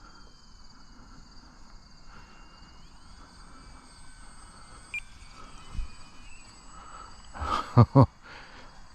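Steady high insect chirring, with the faint whine of the RC plane's electric motor sliding up and down in pitch as the throttle changes. Near the end there is a short, louder sound, probably a brief sound from the pilot's voice.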